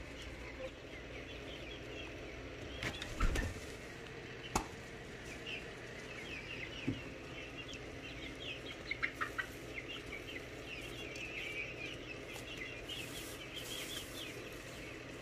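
Chickens peeping and clucking softly in the coop, many short high calls scattered throughout, with a couple of sharp knocks about three and four and a half seconds in.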